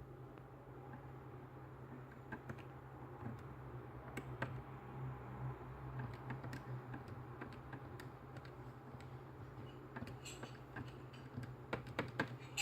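Faint, irregular clicks of keypad buttons being pressed, coming more often near the end, over a steady low hum.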